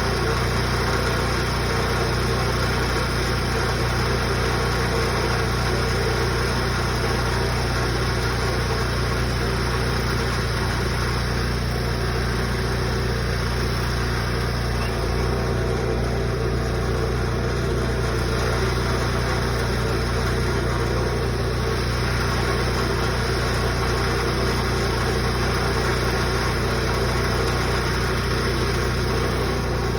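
An engine running steadily at an even speed, with no change in pitch or level throughout.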